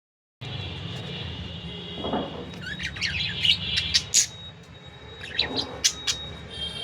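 Budgerigar chirping: quick runs of short, sharp chirps, one cluster about two and a half to four seconds in and another around five and a half to six seconds, over a steady low hum.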